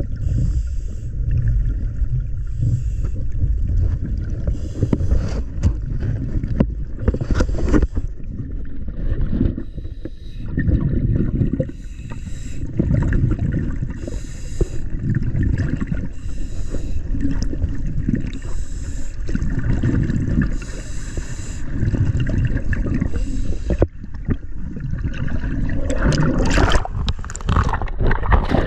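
Underwater sound of a scuba diver breathing through a regulator: hissing breaths alternate with rumbling, gurgling rushes of exhaled bubbles every couple of seconds.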